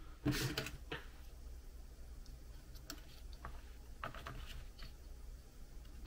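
Scattered small clicks and taps of laptop RAM sticks being handled and set into the SO-DIMM memory slot, with a slightly louder cluster about half a second in.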